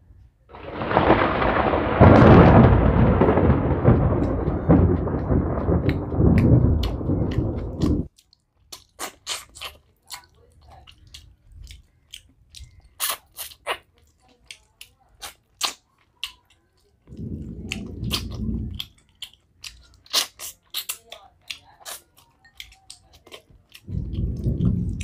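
Thunder rumbling loudly for about seven seconds, swelling about two seconds in and cutting off suddenly. After it come the wet clicks and smacks of chewing rice by hand.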